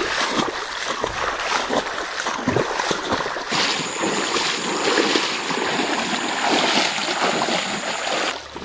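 Water splashing and sloshing in an uneven rush, with a thin, steady high-pitched whine joining about three and a half seconds in and cutting off near the end.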